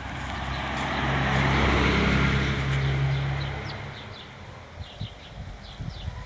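A car driving past, its engine and tyre noise swelling to a peak about two seconds in and fading away by about four seconds. Birds chirp briefly near the end.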